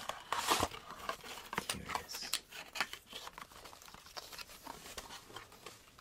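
Handling and opening a G-Shock watch box and lifting the watch out on its display stand: rustling and crinkling of the packaging with many small clicks and taps, busiest in the first second.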